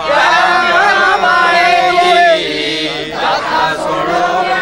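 A group of voices chanting a Punjabi devotional song together.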